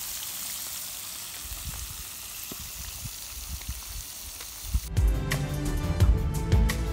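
Fish frying in hot oil in a pan over a wood fire: a steady sizzle. About five seconds in it cuts abruptly to background music with plucked notes.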